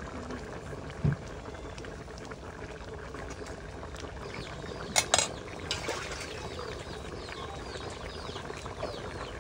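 Fish curry bubbling steadily at a boil in a wide metal pan, with a knock about a second in and a couple of sharp clicks about five seconds in.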